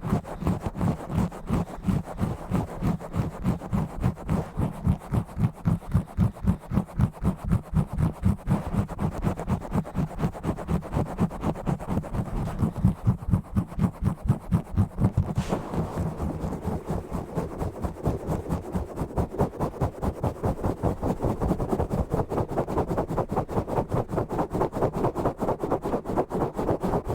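Fast, rough scratching and rubbing directly on a bare microphone with no foam cover, in rapid rhythmic strokes several times a second, heavy in low rumble.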